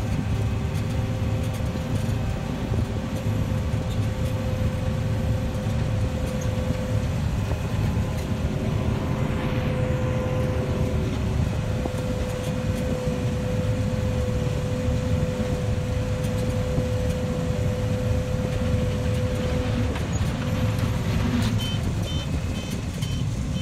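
Combine harvester running steadily while harvesting soybeans: a heavy low rumble with a steady whine on top. A run of short high beeps comes in near the end.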